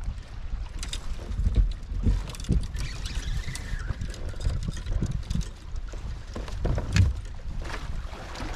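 Wind buffeting the microphone in uneven gusts, with water lapping against a kayak hull and scattered short knocks and clicks.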